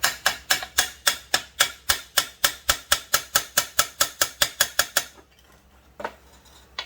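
Small hammer tapping metal on metal in quick, even strokes, about five a second for roughly five seconds, then two single taps, working at a stuck dowel pin in a chainsaw crankcase.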